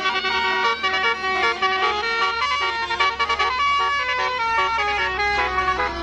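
Indonesian bus 'telolet' musical horn (Basuri type, roof-mounted trumpets) playing a fast tune of short notes that change pitch in steps, over a low engine hum.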